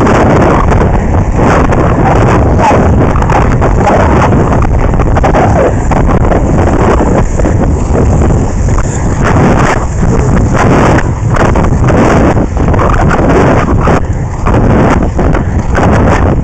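Heavy wind buffeting on the microphone of a camera moving at skating speed, over a steady rumble of inline skate wheels rolling on asphalt.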